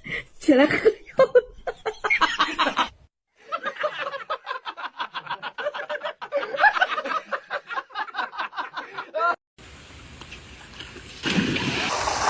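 People laughing and speaking, with a run of rapid pulsing laughter through the middle.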